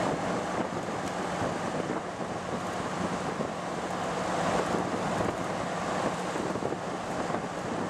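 Wind and road noise inside a 1978 Triumph Spitfire 1500 driving at a steady speed, with its carburettors freshly set and its four-cylinder engine running as a steady low hum underneath.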